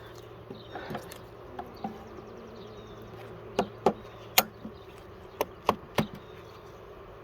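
Honeybee colony buzzing steadily from an open hive, with a run of sharp knocks and clicks about halfway through as the wooden hive frames and parts are handled.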